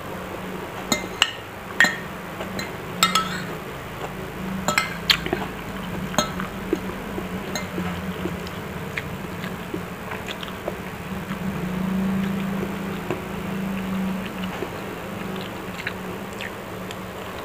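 Metal spoon and fork clinking and scraping against a ceramic plate, in scattered sharp clicks that come thickest in the first few seconds, with chewing between, over a steady low hum.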